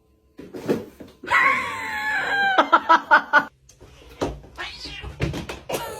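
A cat yowling: one long, drawn-out caterwaul starting about a second in, followed by a quick run of short, choppy cries.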